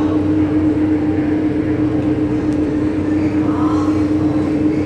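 The catamaran's engines run with a steady, even hum, heard from inside the boat's underwater viewing cabin.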